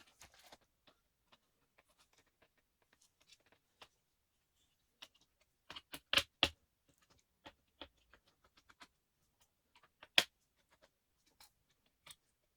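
Small scattered clicks and taps of a laptop's parts being handled during disassembly, with two sharp knocks close together about six seconds in and another near ten seconds.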